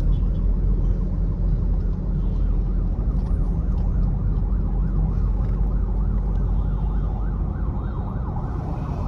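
A siren wailing quickly up and down, a few times a second, comes in about two seconds in, heard from inside a moving car's cabin over the steady rumble of the car's engine and tyres.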